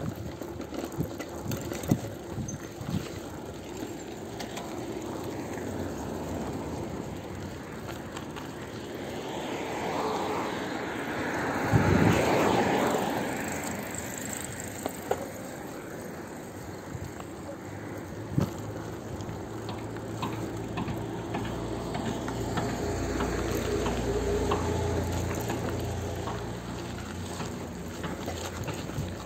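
Street noise heard from a moving bicycle: a steady rush of road and air noise with scattered clicks, swelling louder to a peak about twelve seconds in. A low steady hum comes in during the last third.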